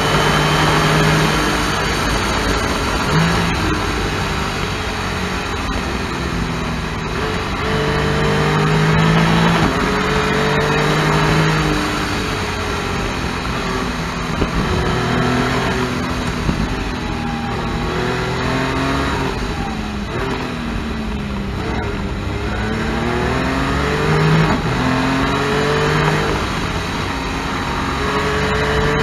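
Can-Am Spyder F3-S's Rotax 1330 ACE three-cylinder engine at speed, revving up through the gears and dropping back again and again, its pitch climbing and falling with each shift and throttle change. Rushing wind and road noise runs underneath.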